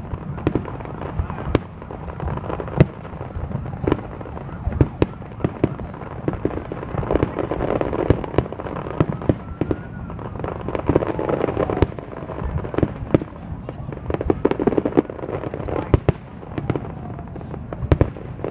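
Aerial fireworks display: shells bursting one after another at an irregular pace, a sharp boom or crack about every second or so, over a steady rumble of continuous reports.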